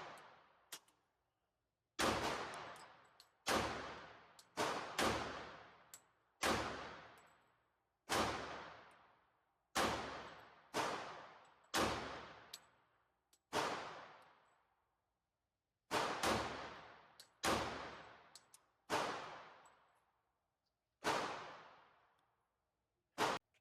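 Glock 41 Gen 4 .45 ACP pistol fired about fifteen times in slow, steady succession, roughly one shot every second or so, each trailing off in a long echo, with a pause of a couple of seconds midway.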